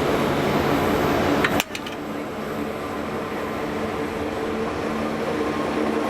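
A "Caimano" diesel locomotive running steadily, a hum with several steady tones. About a second and a half in there is a short click, the sound drops abruptly, and then the hum carries on more quietly.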